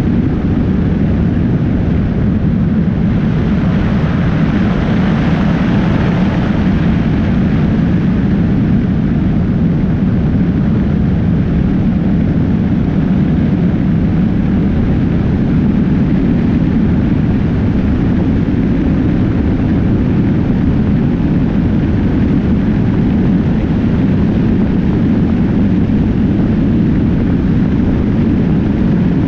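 Steady wind noise buffeting a motorcycle-mounted action camera at highway speed, mixed with the bike's engine and tyre rumble. A hissier swell rises and fades about three to seven seconds in.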